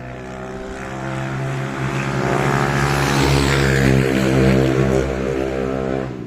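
An engine's steady pitched drone that grows louder to a peak about four seconds in, then eases off, over a rushing hiss.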